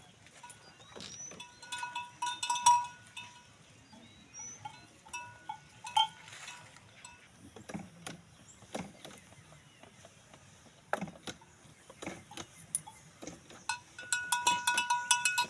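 Cowbells on cattle clanking irregularly as the cows shift about, in a ringing cluster early on and again near the end, with scattered knocks in between.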